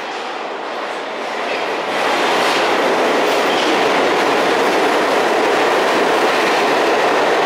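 Bombardier R179 subway train running along the station platform: a steady rumble of wheels on the rails that grows louder about two seconds in and then holds steady.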